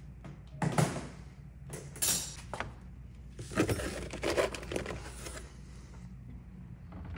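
Dishes being handled and loaded into a dishwasher: several short clattering, rustling bursts, the busiest a little past halfway, over a steady low hum.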